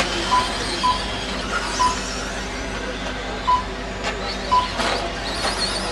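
Electric RC racing trucks running on a dirt track, their motors whining as they speed up and slow down, with a couple of knocks about four to five seconds in. Five short electronic beeps sound through it: the lap-counting system registering trucks as they cross the timing loop.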